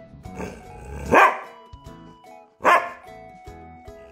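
A dog barking twice, two short barks about a second and a half apart, over background music.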